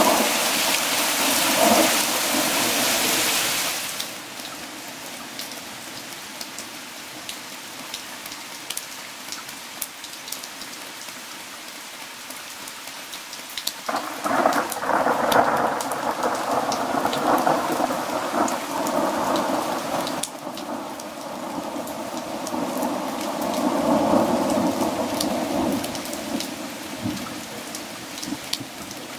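Heavy rain pouring for the first few seconds, then lighter rain with scattered drops pattering. Thunder rolls about halfway through, and rolls again a few seconds later.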